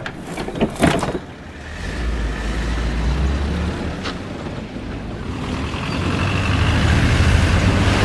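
Minibus engine running as the bus pulls away, its low rumble growing louder over the last couple of seconds. A couple of sharp knocks come about a second in, and another near the middle.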